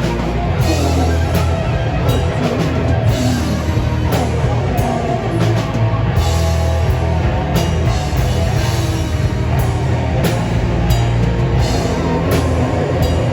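A live rock band playing loudly, with a drum kit beating steadily under heavy, dense guitars and a strong low end.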